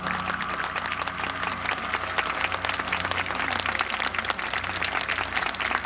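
Audience applauding, many hands clapping. Beneath it a lingering ringing tone slowly fades.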